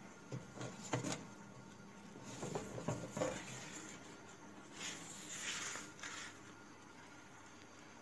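Handling noise: light knocks around one second in and again near three seconds, then a rubbing swish between about five and six seconds, as a hand and the phone brush against the washing machine's plastic casing and hoses.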